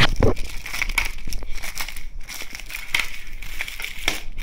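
Plastic shrink wrap on a Blu-ray case crinkling and crackling in irregular bursts as it is cut and pulled off.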